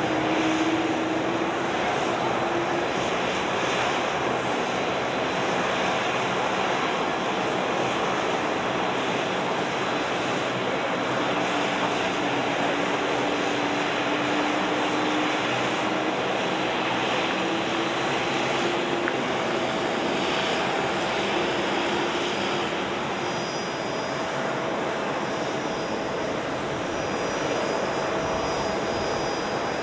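Boeing 777-300 airliner's jet engines running at low taxi power as it taxis: a steady rushing noise with a faint hum that drifts slightly in pitch.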